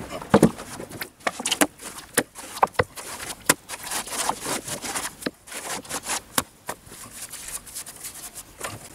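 Wet mortar scooped by gloved hand from a bucket and thrown against a brick wall: irregular sharp slaps and knocks with scraping in between.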